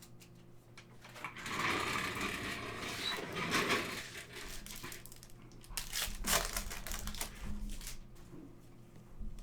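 Crinkling and rustling of a foil trading-card pack being torn open and handled for a few seconds, then a run of short clicks and rustles as the cards are handled.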